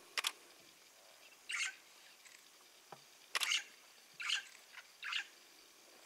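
A series of short, sharp clicks, about five of them spaced roughly a second apart, over a faint background hiss.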